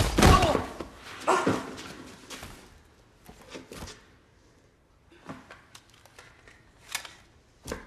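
Rustling and handling noises as a man rummages through bags in the back of a car. There are two louder scuffs in the first two seconds, then softer scattered rustles and a few sharp clicks near the end.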